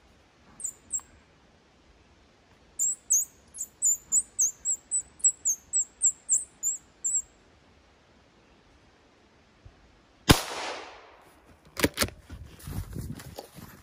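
A bird gives two high chirps, then a quick run of about a dozen. A few seconds later a single gunshot cracks, the loudest sound here, with a trailing echo, followed by scattered rustling footsteps.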